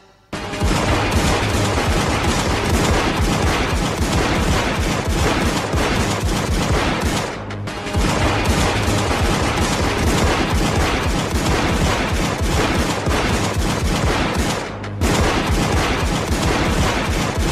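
Rapid, unbroken pistol gunfire from two handguns fired at once, with two short breaks about seven and fifteen seconds in.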